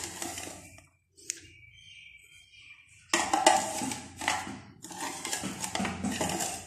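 Metal spoon clattering and scraping in a pressure cooker pot, in two spells: a short one at the start, then a longer, louder one after a lull of about two seconds. One sharp click falls in the lull.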